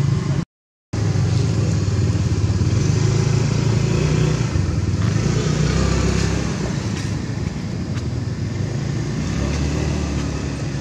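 A motor engine running steadily with a low hum. The sound cuts out completely for a moment about half a second in.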